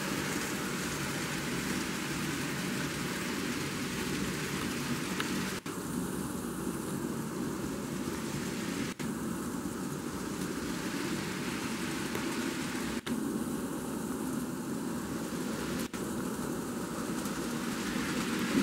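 An N-scale model coal train running on Kato track: a steady whirring of the small locomotive motors and the wheels rolling over the rails, with four very short breaks in the sound.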